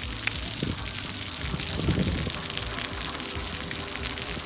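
Splash pad spray jets hissing steadily, over a low rumble.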